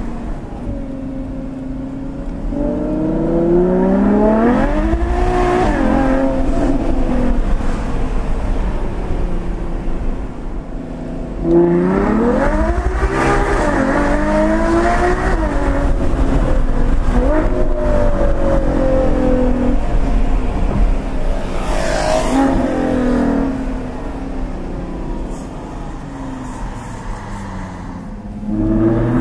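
Ferrari FF's 6.3-litre naturally aspirated V12 heard from inside the cabin under repeated hard acceleration. The engine note sweeps up in pitch and drops back again and again. It surges a few seconds in and again sharply at about a third of the way through, eases to a quieter run near the end, then starts rising once more.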